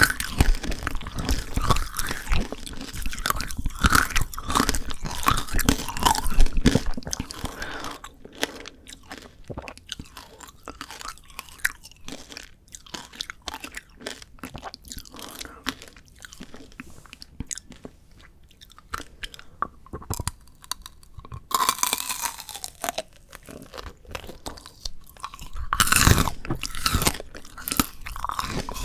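Close-miked eating of frozen Shine Muscat grape tanghulu: the hard candy shell cracking and crunching between the teeth. The crunching is dense for the first several seconds, softer chewing follows through the middle, and loud crunching returns in bursts near the end.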